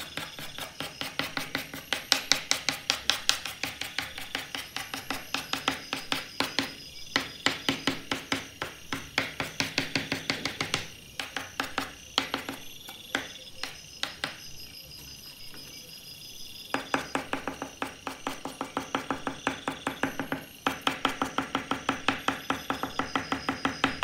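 Rapid short scratchy strokes of a soft pastel stick on sanded pastel paper, pausing for a couple of seconds past the middle, over soft background music.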